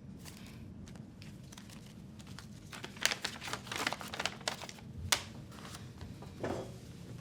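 Small objects being handled in a small room: a quick run of light clicks and rustling about three seconds in, then a single sharp click about five seconds in, over a low steady hum.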